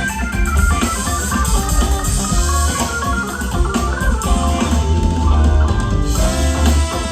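A funk band playing: organ chords over a heavy bass line and drum kit.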